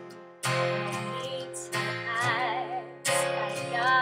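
A woman sings held notes with vibrato over a strummed acoustic guitar. The guitar chords come about every second and a half, three times.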